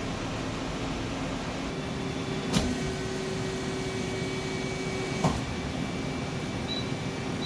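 Okuma LB35 CNC lathe running under power: a steady machine hum with a few steady tones. Two sharp clicks sound about 2.7 s apart, and an extra steady tone sounds between them.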